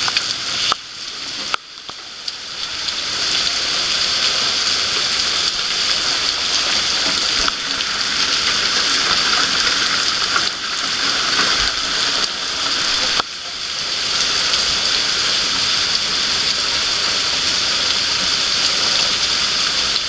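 Heavy rain pouring onto grass, concrete and puddles: a loud, steady hiss that drops away briefly twice, near the start and about two-thirds of the way through.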